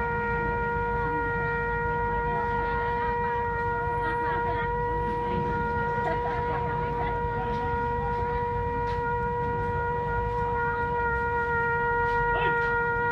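Trumpet holding one long, steady note without a break.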